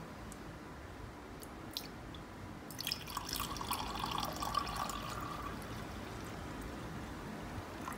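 Warm water poured from a jug into a ceramic mug, splashing and filling for about two and a half seconds starting about three seconds in, after a few faint clicks.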